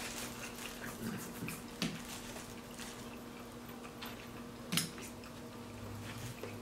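Quiet eating sounds: a few short clicks and knocks of food and utensils being handled, about four in all, the sharpest near the 2-second mark and just before 5 seconds, over a steady low hum.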